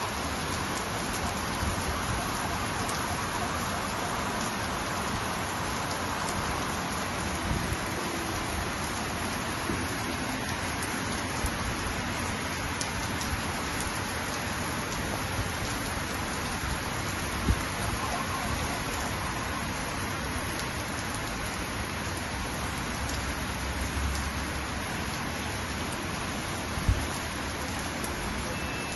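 Heavy rain falling, a steady dense hiss of downpour. Two brief low thumps stand out, one past the middle and one near the end.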